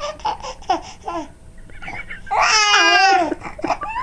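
Twin babies laughing and babbling: short choppy laughs at first, then after a brief lull one long high-pitched squealing laugh for about a second.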